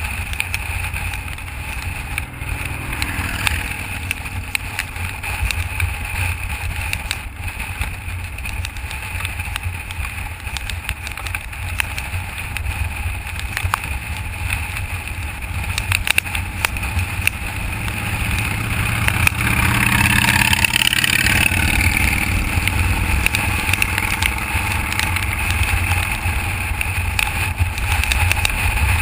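Wind rushing over the microphone with the road and engine noise of a motorcycle cruising along a road, a steady rumble that grows louder about twenty seconds in.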